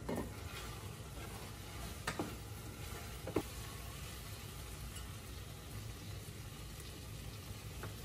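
Wooden spoon stirring food in a stainless steel pot, with a few light knocks against the pot in the first few seconds, the last about three and a half seconds in.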